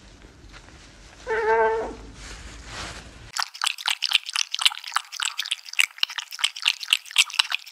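A cat lapping water from a glass tumbler: a fast run of wet tongue clicks, several a second. Before it, a short cry is heard about a second and a half in, while a cat chews a cob of corn.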